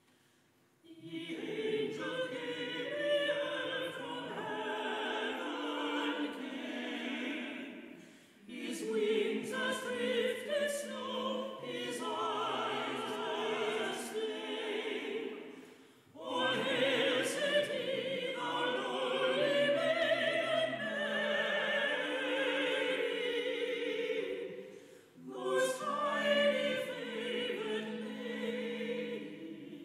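A small church choir singing in four long phrases, beginning about a second in, with brief breaks between them.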